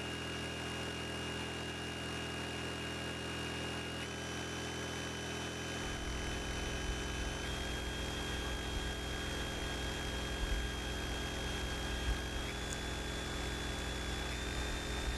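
Honda EU2000i inverter generator running steadily under heavy load, putting out almost its full 2,000 watts to a shop vacuum, heat gun and polisher, whose motors run along with it. A high motor whine steps up in pitch a few times, and a deeper hum joins about six seconds in.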